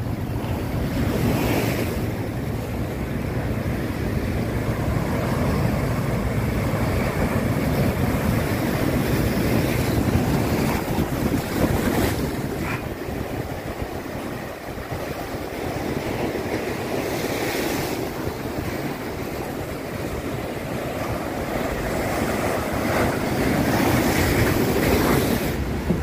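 Rough sea surf breaking and washing over concrete breakwater blocks in a continuous wash that swells and eases, with wind buffeting the microphone.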